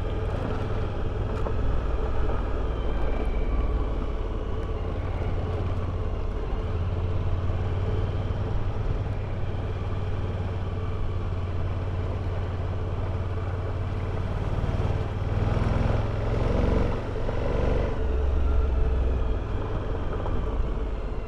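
Motorcycle engine running at road speed, with tyre noise on a gravel road; the engine note shifts a few times about three-quarters of the way through.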